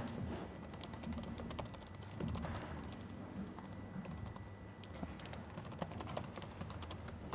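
Typing on a laptop keyboard: a faint, irregular run of key clicks over a steady low room hum.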